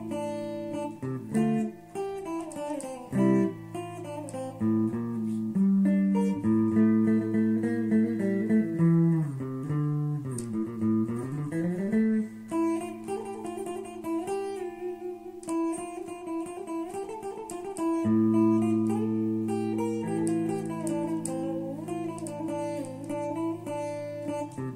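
Instrumental background music led by a plucked string instrument, with sustained low notes under a melody that slides down and back up about ten seconds in.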